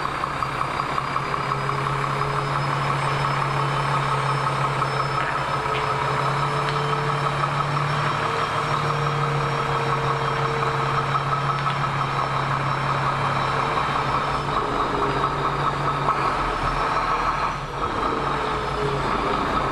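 Heavy truck's diesel engine idling with a steady hum, briefly dipping about three-quarters of the way through.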